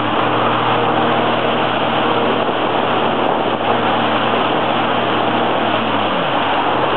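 Jet ski engine running steadily at speed, with the hiss of spray from its wake. About six seconds in its pitch drops as the throttle eases off.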